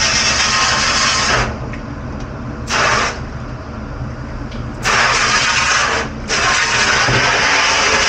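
Loud, steady mechanical rushing noise. It falls away for a few seconds after about a second and a half, with one brief surge in the lull, then comes back abruptly about five seconds in and holds, apart from a short dip.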